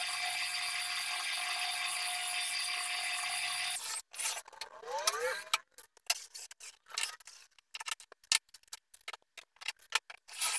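Drill press running with its bit cutting into melamine-faced particleboard, a steady whir that cuts off abruptly almost four seconds in. Then a cordless drill briefly spins up with a short rising whine, followed by scattered clicks and knocks of tools being handled and set down.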